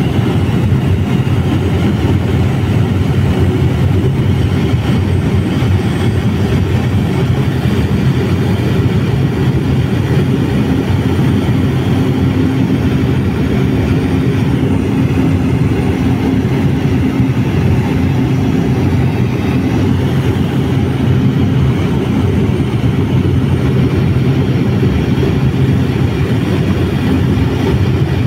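Steady, loud engine drone and cabin noise of an aircraft in flight, heard from inside the aircraft.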